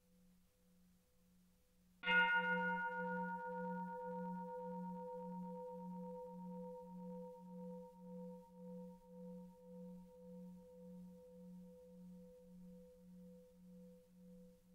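Tibetan gong struck once about two seconds in. A bright, many-toned attack fades quickly into a long low ring that wavers about twice a second as it slowly dies away. Before the strike, the faint ring of an earlier stroke is still sounding.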